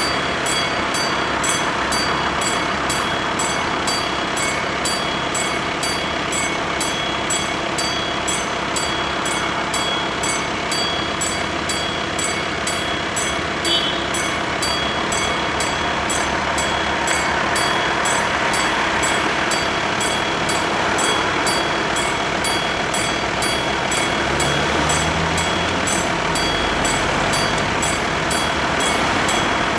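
Electric level-crossing warning bells ringing steadily in an even repeating pattern while the crossing is active, over passing road traffic. A car engine comes past near the end.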